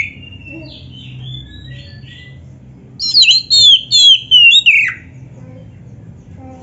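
Black-breasted Oriental magpie-robin singing: a few soft notes, then about three seconds in a loud run of half a dozen quick, sweeping whistled notes lasting about two seconds.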